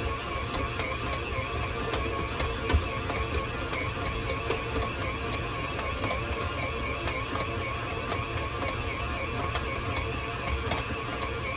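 Tilt-head stand mixer running steadily with a dough hook, kneading a yeast dough; its motor gives a steady, slightly wavering hum.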